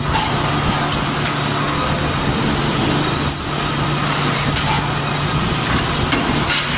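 Forge-shop machinery running steadily: a continuous low hum under a broad hiss of shop noise, with a few faint knocks and no heavy blows.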